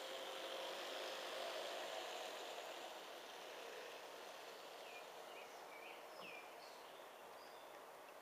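A G-scale model freight train's metal wheels rolling on the track, with a steady hum from the locomotives' electric motors that fades after the first few seconds as they pass. Birds chirp several times in the second half.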